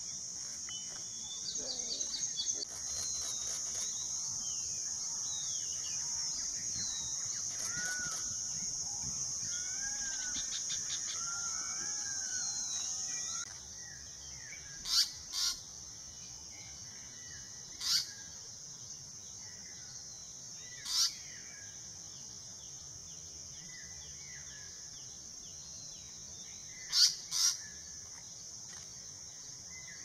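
Wild birds chirping over a steady high-pitched insect drone, which cuts off abruptly about halfway through. After that, several loud, short, sharp bird calls ring out, singly and in quick pairs.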